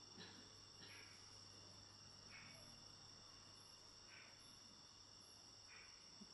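Faint insect chorus: a steady high-pitched trill with a short chirp repeating every second or two, over quiet room tone.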